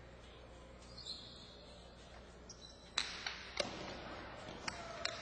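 Jai-alai pelota cracking off the fronton walls during a rally: two loud, sharp cracks about half a second apart near the middle, then lighter knocks near the end. A short high squeak comes about a second in.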